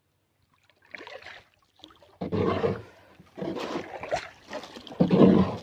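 Water splashing and sloshing in irregular bursts, each about half a second to a second long, starting about a second in.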